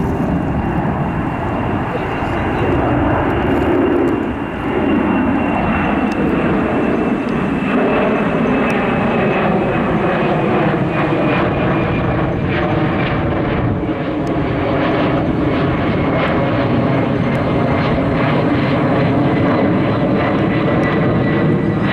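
Twin-engine jet airliner climbing out overhead after takeoff, its engines making a steady loud roar. A high whine in the engine noise slowly falls in pitch as the jet passes and moves away.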